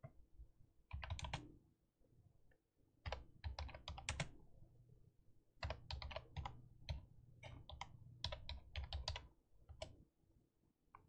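Typing on a computer keyboard: a short burst of keystrokes about a second in, then longer runs of quick key clicks until near the end.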